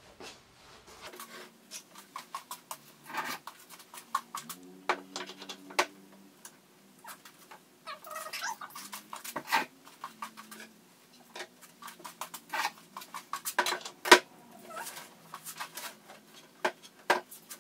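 Handling noises as an LED vanity mirror and its acrylic stand are moved and set on a vanity top: a string of light clicks, taps and knocks, the sharpest about 14 seconds in. A faint steady hum runs underneath, and a few short squeal-like cries come around 8 to 10 seconds in.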